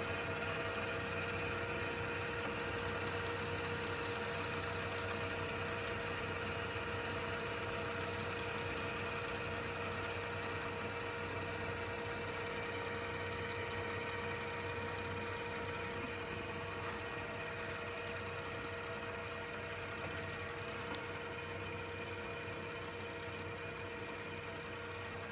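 Lathe motor running at a steady speed with a constant hum of several tones, spinning an acrylic crochet hook blank during wet-sanding. For a stretch in the first half a brighter hiss rides over it: sandpaper rubbing the spinning acrylic.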